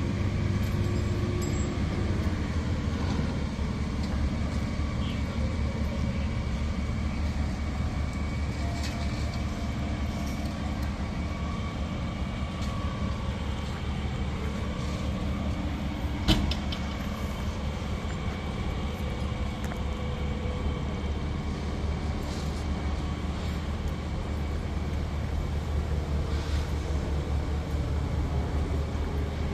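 Fire ladder truck's diesel engine idling steadily, a low even hum, with one sharp click about halfway through.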